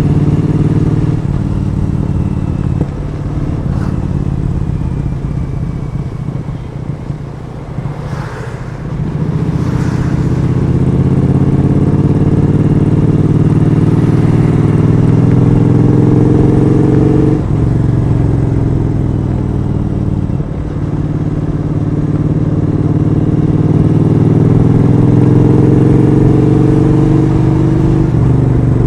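Triumph Street Twin 900's parallel-twin engine under way, revving up through the gears: the pitch climbs steadily, then drops sharply at each gear change, about five times, with a softer, lower stretch early on before it pulls hard again.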